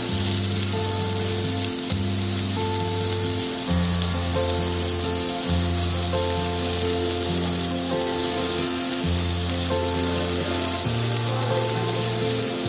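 Pork belly slices sizzling steadily on a hot grill plate, with background music of held bass notes and chords changing every second or two.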